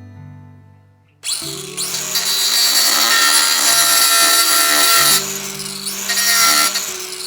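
A power tool starts suddenly about a second in and runs loud under load, easing off briefly around five seconds before picking up again.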